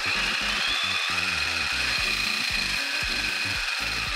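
A 300-watt brushless drone motor driving the 3D-printed herringbone gear and the drive-shaft gears of an eight-wheel RC chassis, running steadily with a high whine. The dry, unlubricated gear teeth are too loud.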